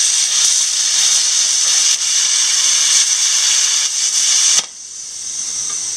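Plasma cutter arc hissing steadily as the torch cuts a circle through steel plate. It cuts off abruptly about four and a half seconds in, leaving a quieter hiss of the torch's post-flow cooling air.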